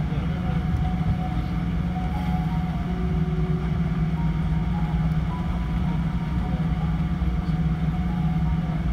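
Steady low hum and rumble inside the cabin of a Boeing 777-300 taxiing slowly on its idling engines, with faint held musical notes coming and going over it.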